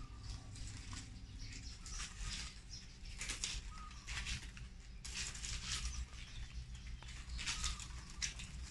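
Fresh coconut palm leaf strips rustling and swishing in short, irregular bursts as they are handled and woven by hand into a hat brim.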